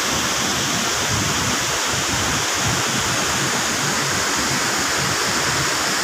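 Steady rushing of a nearby waterfall and stream, an even hiss that does not change.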